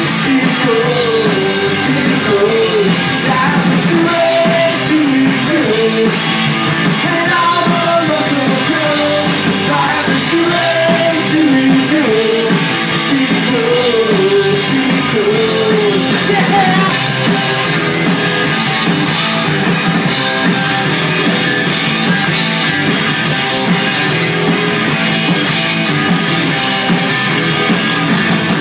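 Punk rock band playing live and loud: electric guitars, bass and drum kit, with a lead vocal over roughly the first half, then instrumental.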